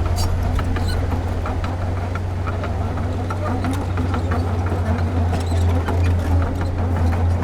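Heavy diesel engine of a construction machine running steadily with a deep hum, with scattered light clicks and clanks over it.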